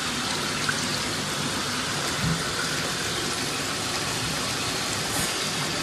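Running water: a steady, even rush with no break.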